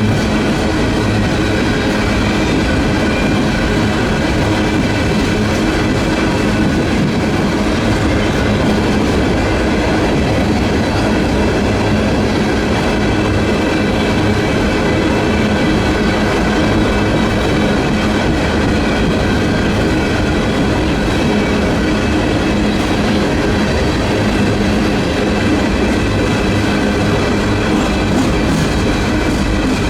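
Freight cars of a Union Pacific coal train rolling past close by: a steady, loud rolling rumble with continuous high ringing tones from the wheels on the rails.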